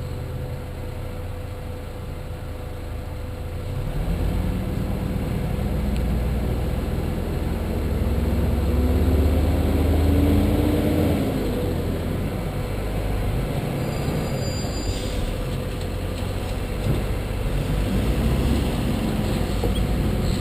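Car driving with steady road rumble; its engine note rises as it speeds up from about four seconds in, falls away after about eleven seconds, then rises again near the end.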